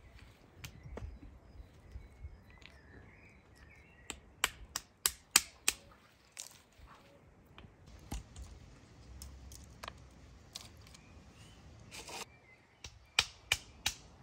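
A stone cracking walnuts in their shells on a wooden board: sharp cracks in quick runs of about three or four a second, one run about four seconds in and another near the end. Birds chirp faintly.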